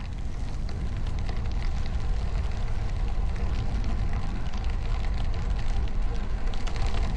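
Steady wind rumble buffeting the microphone while riding a bicycle, with faint rolling noise on top.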